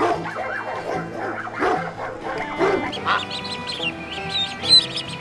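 Farmyard fowl calling: several honking calls in the first three seconds, then a run of short high-pitched chirps, over background music.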